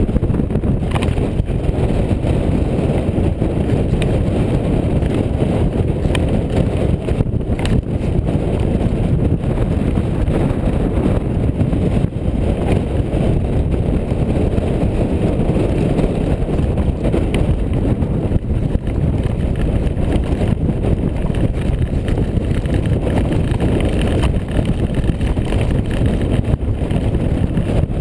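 Mountain bike descending a rough stone-slab and rock trail: a steady, loud rumble of wind buffeting the microphone, mixed with the bike rattling and clattering over the stones.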